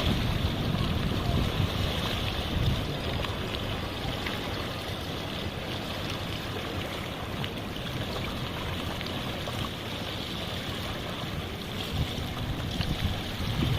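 Small waves on the Jamuna river splashing and lapping steadily, over a low rumble.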